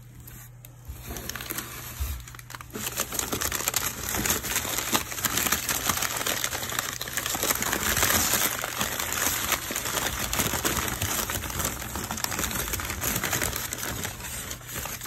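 Crumpled packing paper crinkling and rustling as a hand digs through it in a cardboard box, starting about a second in.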